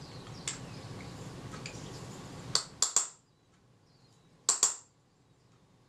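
Small hammer tapping a screwdriver used as an impact driver, to break loose a glue-clogged screw in a Kodak Retina II camera body: three sharp metallic clinks about two and a half seconds in, then two more about a second and a half later. The screw is stuck fast with old glue.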